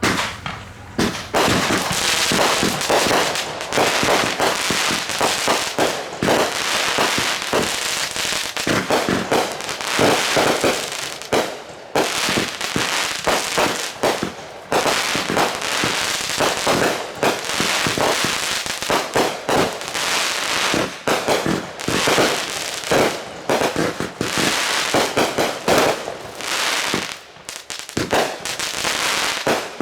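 Fireworks going off in a dense barrage: rapid bangs and crackling almost without pause, starting abruptly, with brief lulls about 12 and 15 seconds in.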